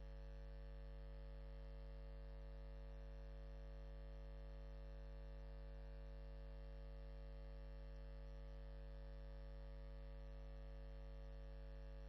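Steady low electrical hum with a stack of evenly spaced overtones, unchanging throughout.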